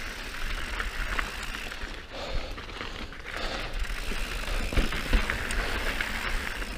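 Mountain bike descending a rocky dirt singletrack: tyres running over the dirt and the bike rattling with short knocks over bumps and rocks, over a steady low rumble of wind on the microphone.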